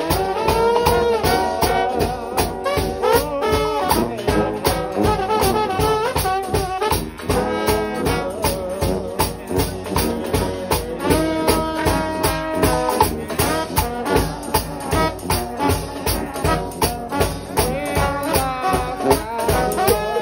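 Gospel shout band of massed trombones playing a hymn-like tune in close harmony, with bass drum and cymbals keeping a steady fast beat and a tambourine shaking along.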